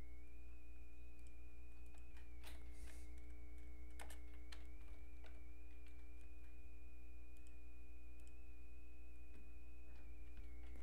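A few scattered computer keyboard and mouse clicks as a value is typed in, over a steady low electrical hum and a high-pitched whine in the recording.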